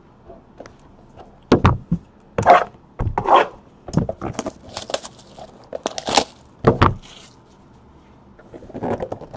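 Cardboard trading-card boxes being handled and set down on a desk: a run of knocks, scrapes and dull thuds, then a short lull before more light handling near the end.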